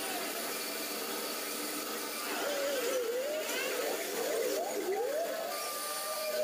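Metal lathe running, with a whine that wavers up and down in pitch through the middle.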